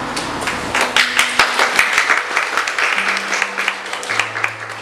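Small audience applauding: the clapping starts about a second in and dies away near the end.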